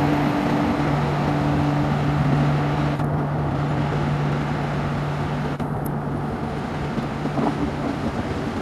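Indian Railways express train hauled by an electric locomotive running past and away: steady rumble of coaches' wheels on the rails with a steady low hum, slowly getting quieter as the train recedes.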